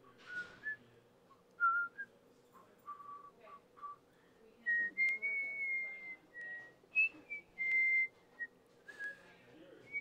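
A person whistling a slow tune: short notes at first, then longer, higher held notes with small slides in pitch from about halfway through.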